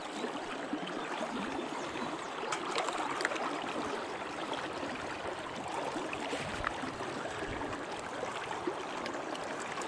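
River current running past a wading angler: a steady rush and gurgle of moving water, with a few faint clicks about three seconds in.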